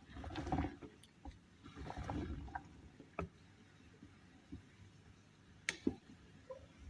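Kitchen handling noise: two short swishing sounds, liquid being stirred or sloshed, then a few sharp knocks of a utensil or container, the loudest a quick double knock near the end.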